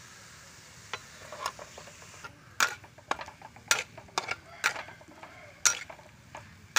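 Metal spatula scraping and clinking against a stainless steel wok as small shrimps are stirred: sharp, irregular clinks, the loudest in the second half. Before that, a steady faint sizzle of the shrimps frying, which cuts off about two seconds in.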